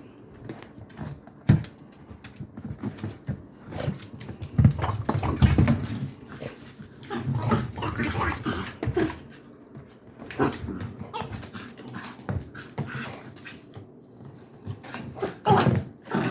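A dachshund whimpering and growling as it chews and tugs at a squeaky toy, trying to get the squeaker out, with irregular scuffles and sharp clicks throughout.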